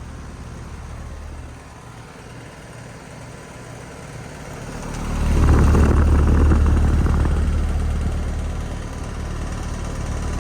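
2007 Bryant 3-ton central air conditioner condenser running, with a scroll compressor and outdoor fan: a steady low hum with a rattle from a badly bent condenser fan blade that needs replacing. It gets much louder about five seconds in.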